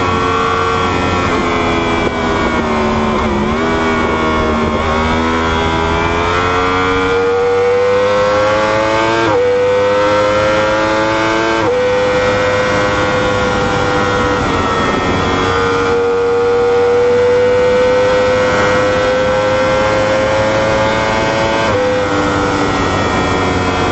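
Superbike's inline-four engine pulling hard through the gears: the pitch climbs and drops sharply at each upshift, twice near the middle and once near the end. Between shifts it holds a long high note at speed.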